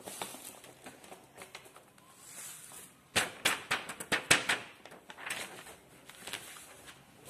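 A sheet of paper being handled and moved on a tabletop: soft rustling, with a quick run of sharp crackles and clicks about three seconds in, then scattered softer clicks.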